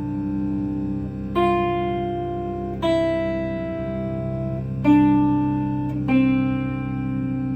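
Electric guitar playing single notes one at a time, four plucks that each ring out, over a steady cello drone sounding a continuous C.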